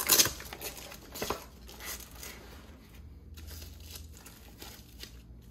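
Nylon fabric of a padded soft rifle case rustling and hook-and-loop straps being handled as a carbine is pressed into place and strapped down. A short louder rasp comes right at the start, then quieter scattered rustles.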